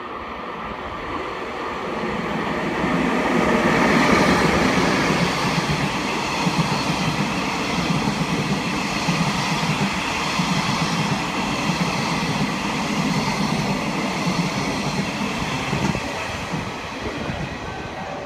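A train passing along the track beside the platform: the rumble of its wheels on the rails builds to a peak about four seconds in, holds steady while the cars go by, and eases off near the end as the last car moves away.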